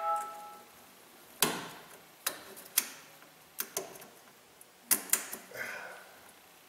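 A pocket screwdriver prying at the dirt-jammed plastic release tab of a GMC Sierra's EVAP vent solenoid: a short ringing ping at the start, then a handful of sharp, irregular plastic clicks and scrapes as the tab is worked.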